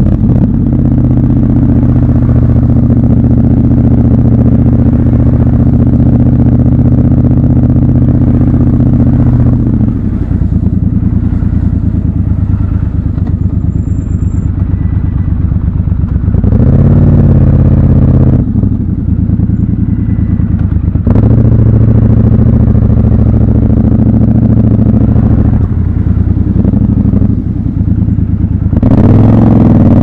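Triumph Scrambler motorcycle engine pulling steadily at low revs for about ten seconds, then easing to a quieter, lower note. It revs up briefly around the middle, settles back to a steady run, and rises again near the end as the throttle is opened.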